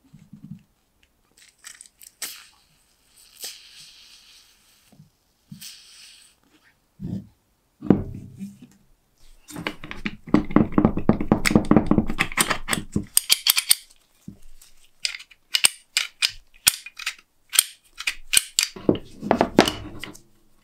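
Aerosol penetrating oil hissing in short squirts into a rust-jammed antique door lock, then the rusty bolt and lock mechanism being worked by hand, rattling and scraping, followed by a run of sharp metallic clicks and taps.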